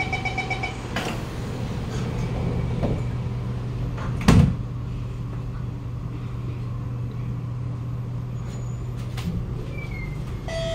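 Inside a Kawasaki Nippon Sharyo C751B train car: the pulsing door-closing chime ends just after the start, the sliding doors shut with a knock about a second in, and a heavy thump follows about four seconds in. A steady low hum from the car's equipment runs underneath until near the end.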